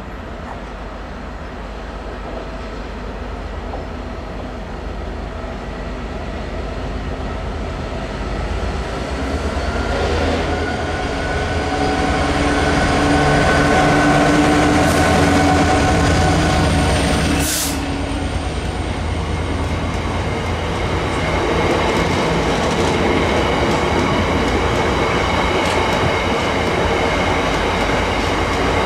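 A Freightliner Class 66 diesel locomotive, with its EMD two-stroke V12 engine, grows steadily louder as it approaches and is loudest as it passes close by about halfway through. It then gives way to the rumble of empty stone wagons rolling past, with one sharp clack and a steady high wheel squeal.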